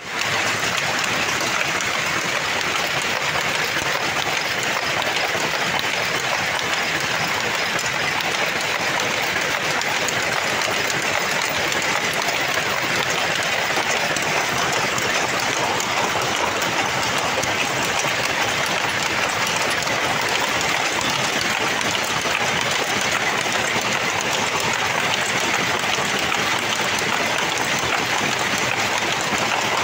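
Jute looms weaving hessian, many machines running together as a loud, dense, unbroken mechanical clatter.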